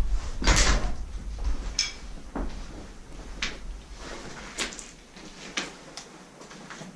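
A series of short sharp knocks and clicks, about one a second, the loudest about half a second in, over a low rumble that dies away partway through.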